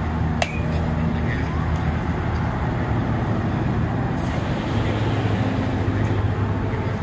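A bat striking a machine-pitched softball about half a second in: one sharp crack with a brief ring. A fainter knock comes near four seconds, over a steady low hum.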